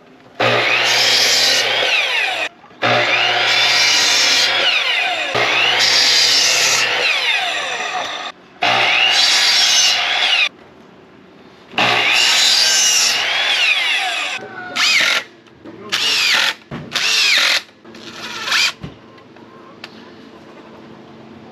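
Ryobi sliding compound miter saw cutting wooden boards in five runs of two to three seconds each, its motor whine rising as it spins up and falling as it winds down, then a few short bursts near the end.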